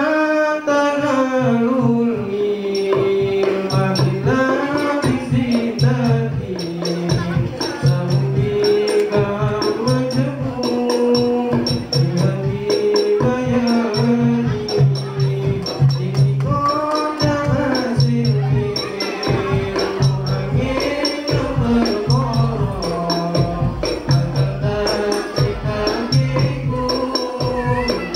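Voices singing a melodic chant to a jingling tambourine-style percussion accompaniment with a pulsing low beat.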